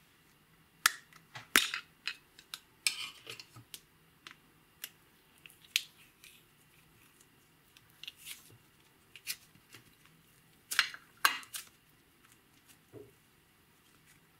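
Thin plastic slime container crackling and clicking as fingers squeeze and bend it to push the slime out. The sharp clicks come irregularly: a cluster over the first few seconds, scattered ones after, and two loud ones near eleven seconds.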